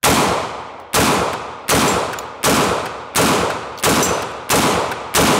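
Eight loud shots from a 5.56 AR pistol with a 7.5-inch barrel and a bare threaded muzzle, with no muzzle device fitted. They are fired at a steady pace about three-quarters of a second apart, and each leaves a long ringing tail.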